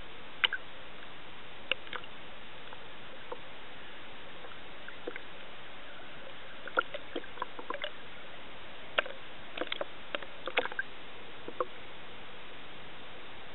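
Underwater sound through a submerged camera: a steady hiss with irregular sharp clicks and pops, coming thickest past the middle.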